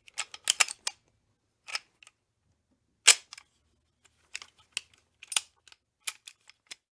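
Gun sound effect: a series of sharp mechanical clicks and clacks, such as a firearm being handled, loaded and cocked. The loudest, single snap comes about three seconds in, and lighter clicks follow in an uneven run near the end.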